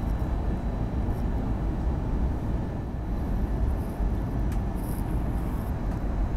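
Steady jet engine and airflow noise inside an Airbus A320's cabin, heard from a window seat beside the engine as the airliner descends on approach to land.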